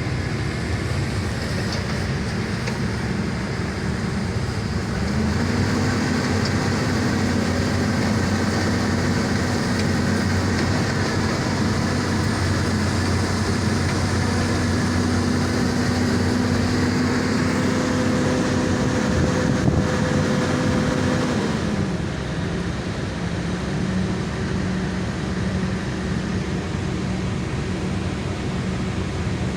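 Hydraulic excavator's diesel engine running steadily. About five seconds in the engine speed rises and holds higher, then drops back to a lower speed about twenty-two seconds in.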